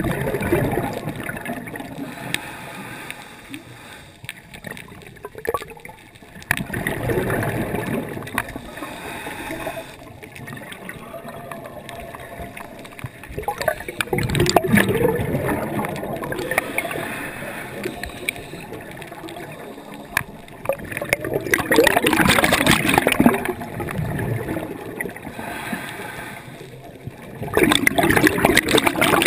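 Scuba diver breathing through a regulator underwater: five gurgling bursts of exhaled bubbles, each lasting two to three seconds and coming about every seven seconds, with quieter inhalations between.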